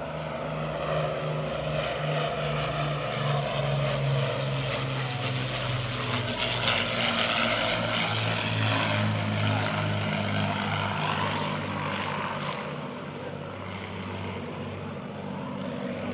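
An Avro Lancaster's four Rolls-Royce Merlin engines running as it flies past. The engine note is loudest around the middle and drops in pitch as the bomber goes by, then eases off toward the end.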